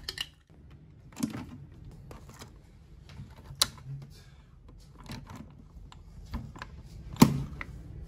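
Light clicks and plastic handling noises from a capsule coffee machine as its chrome lever is lifted to open the capsule slot, then one sharp click near the end as the lever is pressed shut.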